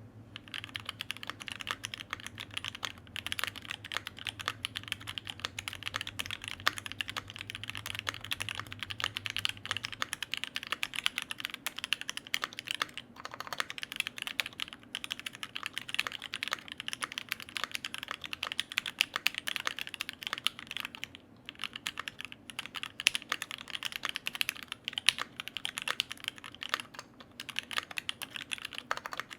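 Continuous typing on a Loki65 65% custom mechanical keyboard: a dense run of keystroke clicks, with a few brief pauses.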